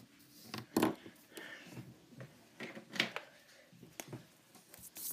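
Felt-tip markers being handled and put down on the table: a few short, sharp clicks and knocks, the loudest about a second in and another at three seconds.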